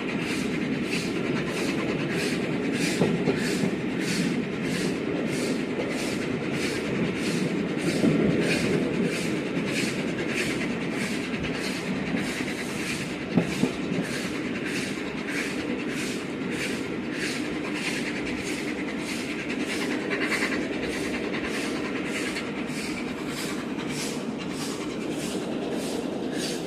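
A steam-hauled train running at speed, heard from inside the coach behind the locomotive: a continuous rumble of wheels on rail with a regular clicking beat about twice a second and a few louder knocks.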